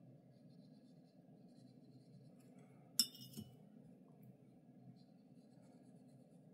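A paintbrush clinks once, sharply, against a glass rinse jar about three seconds in, amid faint scratching of the brush on paper and a steady low room hum.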